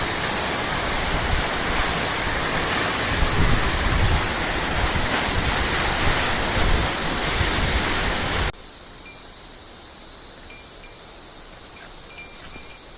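Waterfall plunging, a loud steady rush of falling water. About two-thirds of the way through it cuts off suddenly, leaving a quieter steady high-pitched drone and a few faint metallic chime tinkles near the end.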